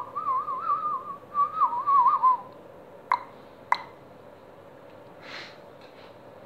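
A person whistling a wavering, warbling tune close to the microphone for about two and a half seconds, then two sharp clicks about half a second apart.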